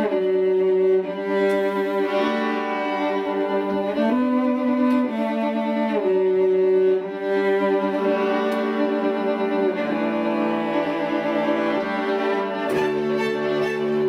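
String quartet of two violins, viola and cello playing held, bowed chords that change every second or two; lower cello notes come in near the end.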